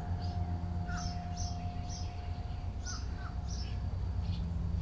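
Small birds chirping: many short, high notes, several a second, over a steady low hum. A faint steady tone runs under them and stops about four seconds in.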